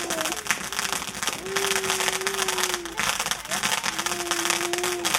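Fireworks crackling: a dense, rapid run of pops throughout. Over it a steady held tone sounds three times, each lasting about a second and a half and sinking slightly in pitch.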